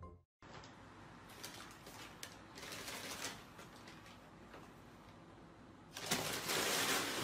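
Paper bag rustling and crinkling loudly about six seconds in as a cat pounces on it and knocks it about on a wooden floor. Before that there are only faint scattered taps and light rustles.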